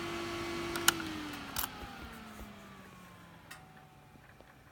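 Honda ATV shutting down: a sharp click about a second in, then its steady whine slides down in pitch and fades over about three seconds as it winds down. The engine has been cut, which the rider puts down to a bumped kill switch.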